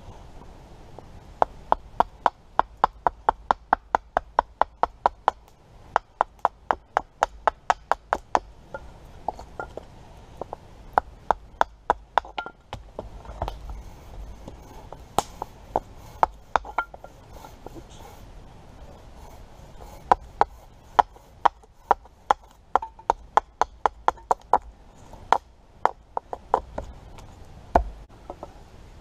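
Runs of sharp hammer knocks, about four a second with short pauses between, as a small hammer strikes down on a thin wooden board held on a chopping stump.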